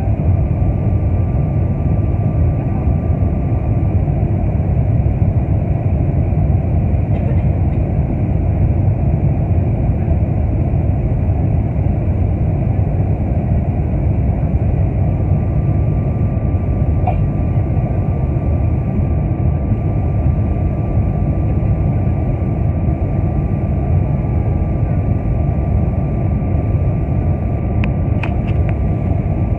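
Steady roar of a Boeing 747-400's jet engines and rushing air, heard inside the cabin during the climb after takeoff. A faint high steady whine sits above the roar for the first few seconds and comes back about halfway through.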